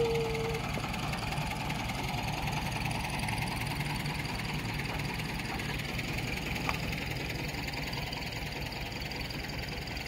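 Steady drone of sawmill machinery running, with a brief steady tone at the very start and a single sharp tick about two-thirds of the way through.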